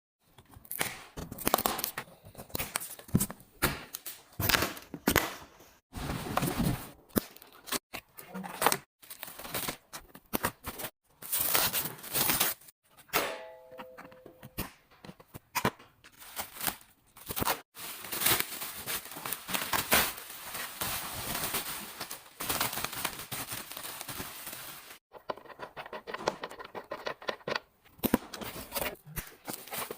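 Packaging being unwrapped: irregular bursts of tearing, crinkling and crumpling of cardboard and plastic wrap, broken by several abrupt cuts to silence.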